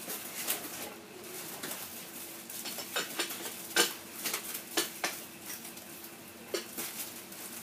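Packaging being handled by hand during an unboxing, with rustling and a scattering of sharp clicks and taps.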